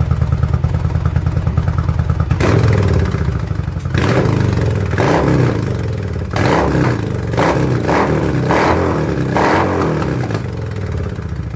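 Yamaha XVS 1100 V-Star's V-twin engine through a Delkevic aftermarket exhaust, idling with an even pulse. From about two seconds in it is revved in a string of short throttle blips, then settles back to idle near the end.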